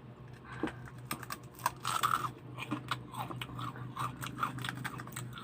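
Close-up chewing of crispy spicy fried fish crackers: a run of irregular sharp crunches and crackles, over a faint steady hum.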